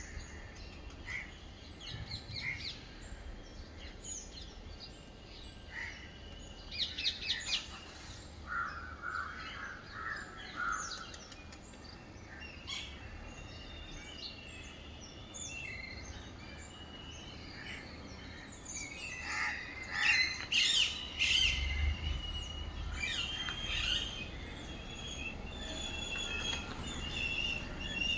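Several small birds chirping and singing, with the short calls coming thicker and louder in the second half.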